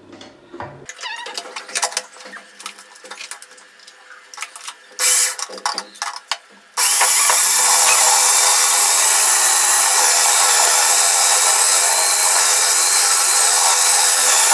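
Plastic clicks and knocks as a food processor's lid is fitted, then about seven seconds in its electric motor starts and runs steadily and loudly, grating white radish (mooli) pushed down the feed tube.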